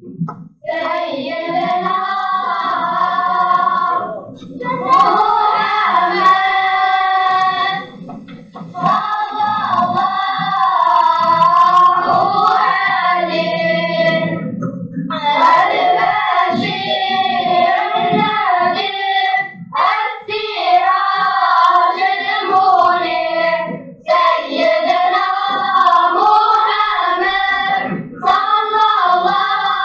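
Children's vocal group singing together in long melodic phrases, with short pauses between the phrases.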